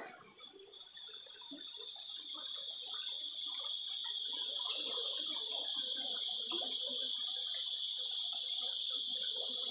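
Cicadas droning in a steady high-pitched buzz that swells over the first couple of seconds and then holds, with a fainter call pulsing over it about once a second.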